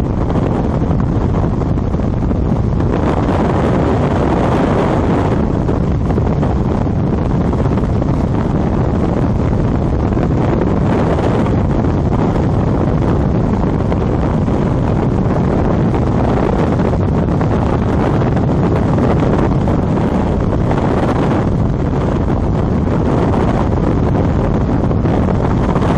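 Skydiving freefall wind rushing over the camera's microphone: a loud, steady roar of noise, heaviest in the lows, swelling slightly a few times.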